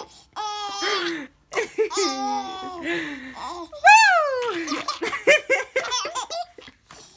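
A 7-month-old baby laughing in repeated bursts of high-pitched belly laughs, with the loudest a high squeal that falls in pitch about four seconds in.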